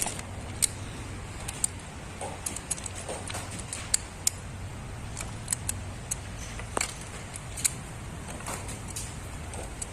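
Hand tools clinking and tapping on metal during spark plug work: irregular sharp clicks, about a dozen, over a steady low hum.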